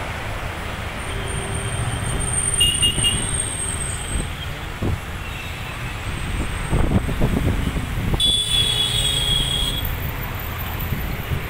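Steady low rumble of a distant Bombardier Dash 8 Q400 turboprop's engines and propellers running on the runway, swelling in places. A brief high-pitched tone sounds about eight seconds in.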